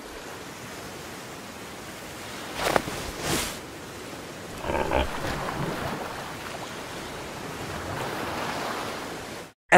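Calm sea ambience of soft waves and wind, with two brief swishes about three seconds in and a short voice-like sound around five seconds. It cuts off near the end, followed at once by a brief loud sound.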